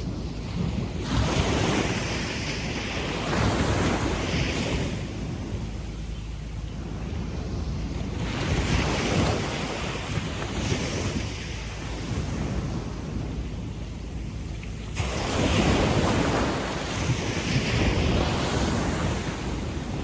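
Gentle waves washing up a sandy beach, each one a rushing hiss that swells and fades over a couple of seconds, several times over, the largest surge coming near the end.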